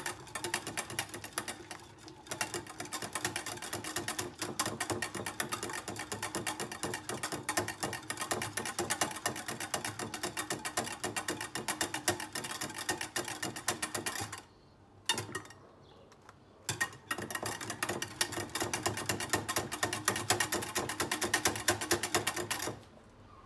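Wire hand whisk beating a thin egg, milk and oil batter in a glass bowl: rapid, steady clicking of the wires against the glass. The clicking breaks off for about two seconds midway and stops shortly before the end.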